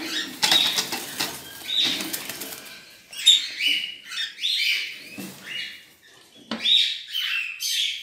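A cockatiel flapping its wings in a wire cage, a quick fluttering in the first couple of seconds, then a run of short high-pitched calls from about three seconds in.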